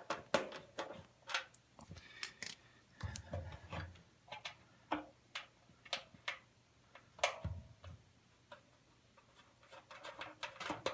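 Irregular small metal clicks and taps of a small adjustable wrench working the nuts that hold the burner access door on a gas water heater, with a couple of dull knocks.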